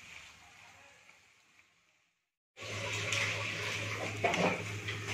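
Chicken in sauce sizzling in a wok while a silicone spatula scrapes and stirs it. The sound fades out to silence for about a second, then comes back louder about two and a half seconds in, with a steady low hum under the sizzle.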